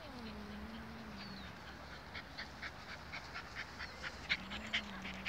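Faint, low, drawn-out animal whine that glides down at the start and then holds one pitch, then comes again near the end. Light rhythmic ticks, about four a second, fall in between.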